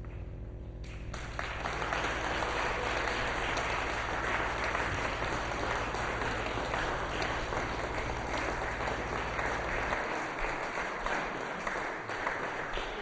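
Audience applauding, starting about a second in, over a low steady hum that stops about three seconds before the end.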